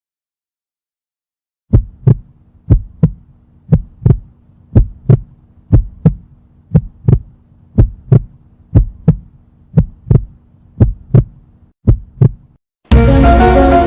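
Heartbeat sound effect: a low double thump, lub-dub, about once a second over a faint steady hum. It stops near the end, where music comes in.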